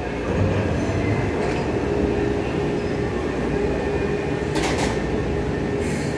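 Taipei Metro C301 train at the platform just after its doors close, its motors and wheels giving a steady rumble with a tone that creeps slightly higher as it begins to move off. Two short hisses come near the end.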